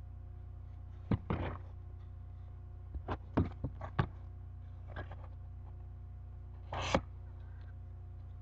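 Packaging being handled during an unboxing: a few scattered knocks and clicks and a short rustle near the end, over a steady low electrical hum.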